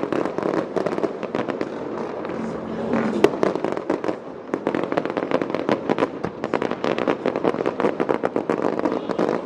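Fireworks display: dense, rapid crackling of many small bursts, with one sharper bang a little over three seconds in.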